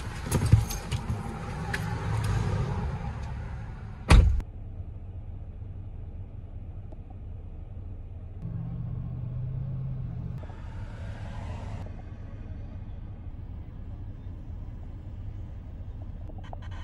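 Police patrol car: the driver's door opens with rustling and knocks, and slams shut about four seconds in. The car then keeps up a steady low rumble, heard from inside the cabin, with a brief hum and then a hiss around the middle.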